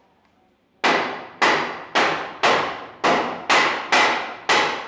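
Hammer blows struck in a steady rhythm, about eight in all at roughly two a second, starting about a second in. Each blow is loud and sharp, with a ringing, echoing tail.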